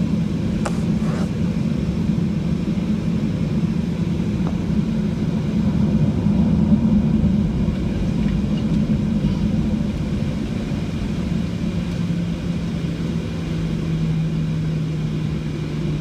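Inside the cabin of a Boeing 737-800 taxiing, its CFM56-7B engines running at low taxi power: a steady low hum over a rumbling noise. The hum drops slightly in pitch about eleven seconds in.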